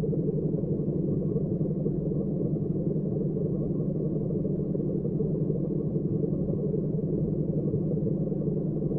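Steady low rumbling hum, even and unbroken, with no distinct events.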